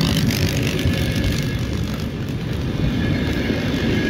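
Coaches of a passenger train hauled by an Sr1 electric locomotive passing close at speed: a steady rumble of wheels on rails with a rush of air.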